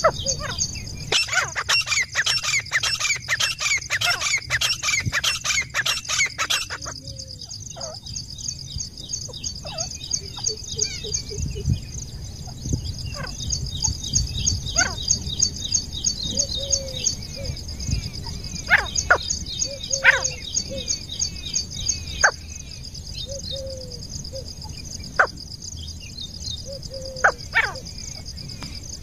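Grey francolin calling: a fast run of repeated calls for about the first seven seconds, then scattered single call notes, over a steady high-pitched drone.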